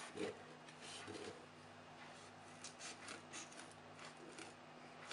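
Faint scraping and clicking of a kitchen knife cutting around a ripe avocado down to its pit, in short irregular strokes, over a faint steady hum.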